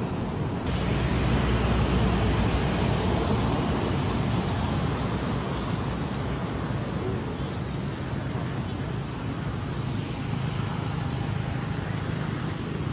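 Steady outdoor rushing noise with a low rumble, a little louder during the first few seconds.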